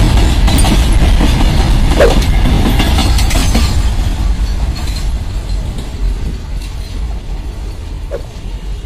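Empty BCN covered freight wagons rolling past, their wheels clattering over the rail joints, with a brief squeal about two seconds in. The rumble fades steadily as the last wagons pass and move away.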